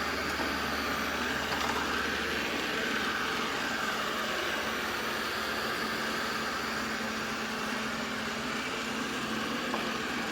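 AIRROBO T20+ robot vacuum running: a steady whirring hiss of its suction motor and brushes.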